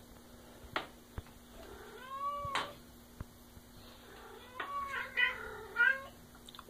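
Domestic cat meowing with a stuffed toy dog held in its mouth: a short call about two seconds in, then a longer, wavering call from about four and a half seconds.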